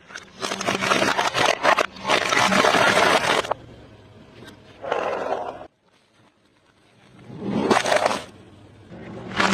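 Car tyre rolling over and crushing objects, with loud crunching and crackling in separate bursts: a long one in the first few seconds, a shorter one about five seconds in, another near eight seconds and a fresh one starting at the end.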